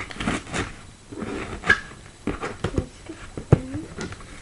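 Cardboard shipping box being opened by hand: rustling and scraping of the flaps with sharp taps and knocks on the cardboard, the loudest about three and a half seconds in, followed by a short whine.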